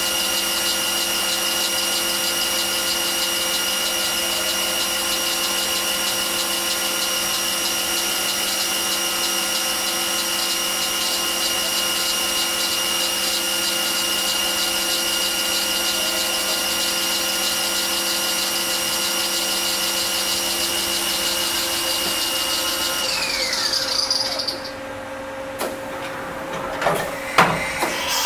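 Fadal CNC mill's spindle running at a steady high whine while its cutter mills plastic handle blanks. Near the end the spindle winds down with falling pitch and stops, followed by a few sharp knocks.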